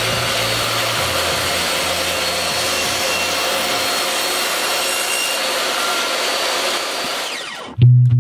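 Table saw running and cutting through a wooden board, a steady whine of blade and motor. About seven seconds in it fades and drops in pitch as the blade spins down.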